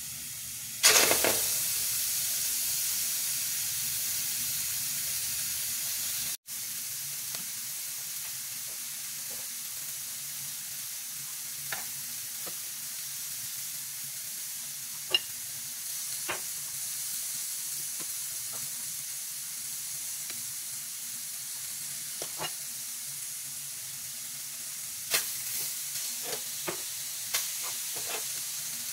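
Lamb pieces sizzling as they sear in a stainless steel frying pan: a steady hiss that swells sharply about a second in. Scattered clicks and taps of metal tongs on the pan come through, more of them near the end.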